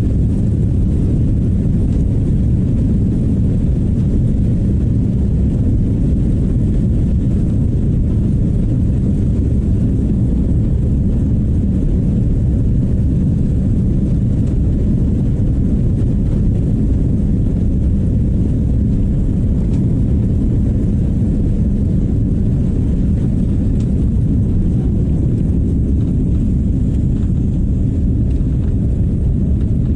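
Jet airliner's engines at takeoff thrust together with the rumble of the wheels on the runway, heard from inside the cabin during the takeoff roll: a loud, steady, deep roar.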